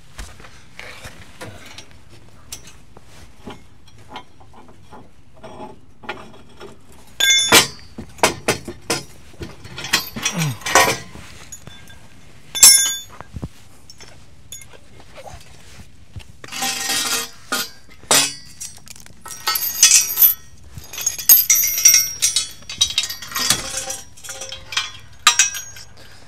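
Metal clinking, clanking and rattling as a tow bar is worked loose and taken off an old VW Beetle. There are scattered sharp knocks and short rattles, starting about seven seconds in and coming thickest in the second half.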